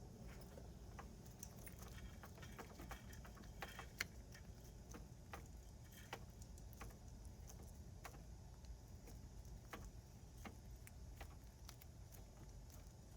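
Faint, scattered small clicks and taps of hands fitting the door handle's parts into a car door, with one sharper click about four seconds in.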